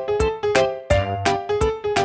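Background music: a tune of short, quickly struck keyboard-like notes over a steady beat.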